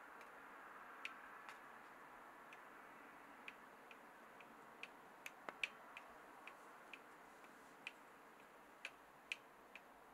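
Faint, irregular small clicks, roughly two a second, over a low hiss near silence, the loudest a little past the middle.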